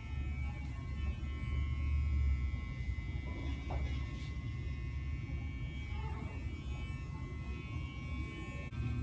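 Electric hair clippers running with a steady low buzz, cutting hair on a practice mannequin head.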